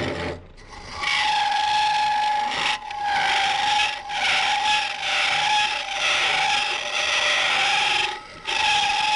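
Turning tool squealing against a spinning green-wood goblet blank on a Jet Mini lathe: a steady high squeal over a cutting hiss, starting about a second in and broken three times by short pauses. The turner thinks the long overhang of wood off the chuck, or the way he holds the tool, may be the cause.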